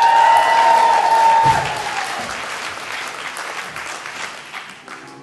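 Audience applauding, with one voice holding a long high note for about two seconds at the start; the clapping then slowly dies away.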